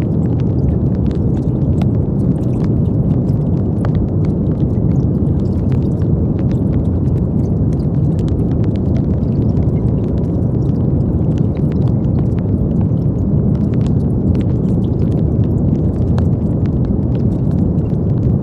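Brown noise: a steady, deep hiss with most of its weight in the low end and no change throughout, with faint scattered ticks in the high end.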